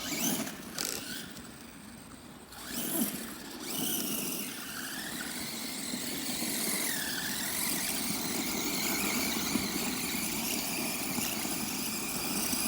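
Electric 1/8-scale RC off-road buggy running: a steady whir of motor and drivetrain with a high whine that wavers in pitch, settling in about three seconds in after a couple of short bursts.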